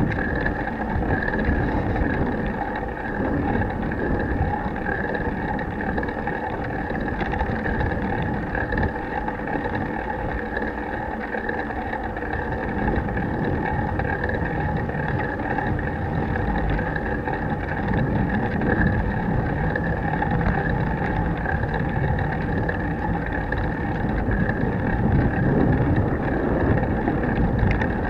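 Bicycle riding noise picked up by an action camera clamped to the handlebar with no protective housing: a steady rumble of road vibration and tyres, with wind buffeting the bare microphone.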